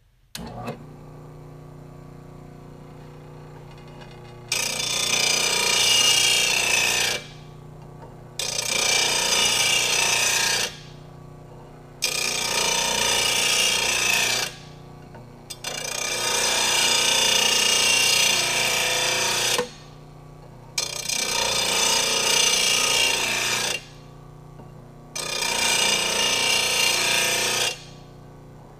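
RBG 712 blade sharpener's motor switches on and runs with a steady hum while a steel Walker mower blade is drawn across the grinding wheel six times. Each pass is a loud, harsh grind lasting a few seconds, with only the motor's hum between passes, as the blade's cutting edge is ground sharp.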